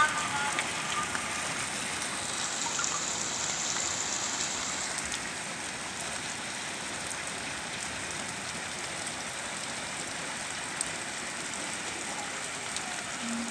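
Steady, calm rain falling, an even hiss of drops with a few faint ticks.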